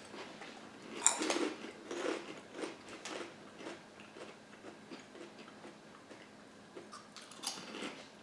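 Someone crunching and chewing a crunchy paprika-flavoured snack, with a few short crisp crunches spread through. The loudest comes about a second in.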